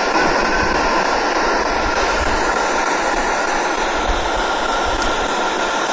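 Steady, loud static-like hiss with a thin, steady high tone running through it.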